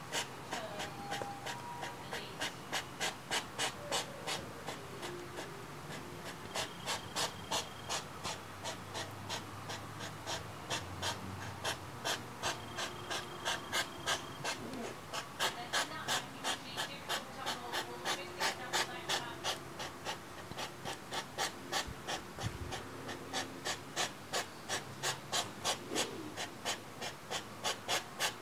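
European hedgehogs courting: rapid, rhythmic puffing and snorting, about two to three sharp huffs a second, kept up without a break.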